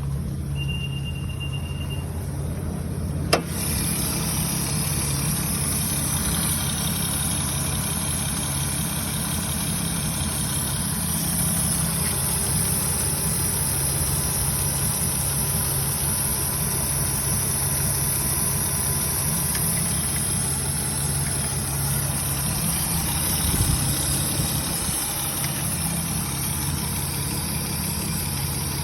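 A 4th-gen Acura TL's J35 V6 idling steadily with a tick, which the owner takes for a blown gasket. A single sharp click about three seconds in.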